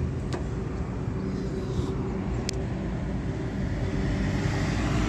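Steady low engine-like drone, with two sharp clicks, one about a third of a second in and one about two and a half seconds in.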